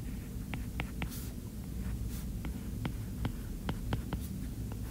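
Pen stylus tapping and scratching on a tablet screen while handwriting: a dozen or so short, light ticks at irregular spacing, with a few faint scratchy strokes, over a steady low hum.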